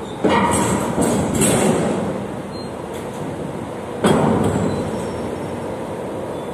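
Metal clanks and bangs as an empty steel shipping container is lowered by crane into a ship's cargo hold, with a sharper bang about four seconds in as it comes down against the stacked containers, over a steady machinery rumble.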